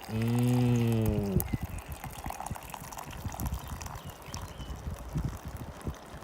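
A long, appreciative 'mmm', then faint liquid and handling sounds as hot chocolate milk and coffee are poured into an insulated Yeti mug, with small irregular knocks.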